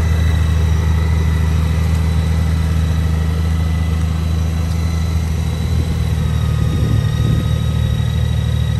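2014 Honda Valkyrie's 1,832 cc flat-six engine idling steadily, freshly started.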